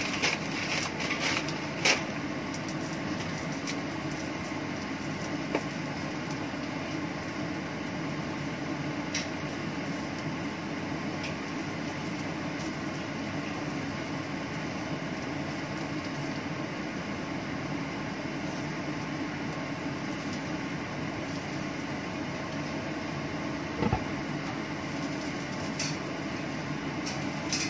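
Kitchen range hood exhaust fan running with a steady hum, with a few short knocks of utensils or cookware, the loudest about two seconds in and another near the end.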